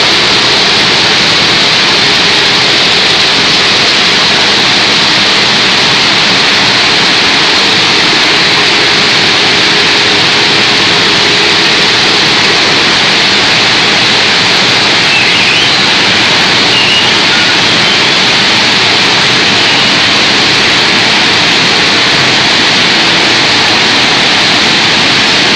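Hydraulic power unit of a Y81-series scrap metal baling press running: the electric motor and pump give a loud, even, hiss-like noise with no knocks or pauses.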